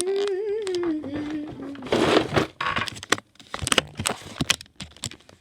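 A girl humming a wavering tune that falls in pitch and stops at about two seconds. It is followed by a burst of rattling and several sharp knocks as small things are handled.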